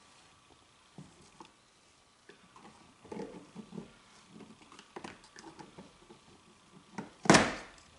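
Small clicks and scraping of a metal pick prying at the mounting clip of a plastic roof grab handle, then a loud sharp snap near the end as the handle pops free of the headliner.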